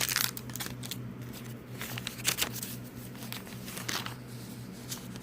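Paper rustling as pages and paper pieces of a handmade journal are handled and turned, in several short brushes and flips, the loudest around two seconds in, over a faint steady low hum.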